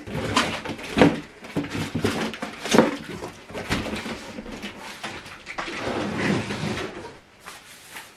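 Packaging and boxed speaker parts being handled: irregular rustles, scrapes and knocks, with a few sharper knocks and a longer rustle about six seconds in.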